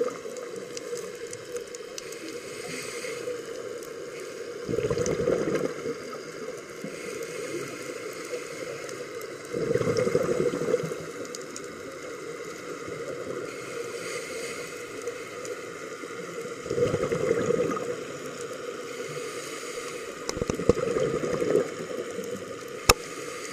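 Scuba diver breathing through a regulator, heard underwater: four bursts of exhaled bubbles gurgling about every five seconds, with a quieter steady hiss between them. A single sharp click near the end.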